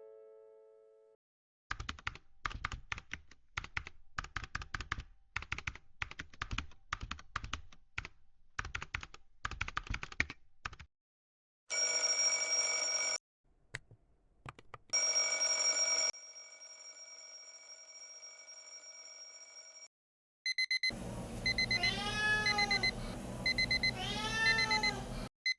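A string of edited-in sound effects: first quick, light clicks and taps for about nine seconds, then a few seconds of steady electronic tones. Near the end comes an electronic alarm clock beeping rapidly over a dense, noisy backdrop.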